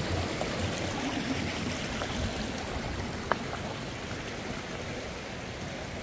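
Steady rushing of a shallow river running over rocks, with a single sharp click a little past halfway.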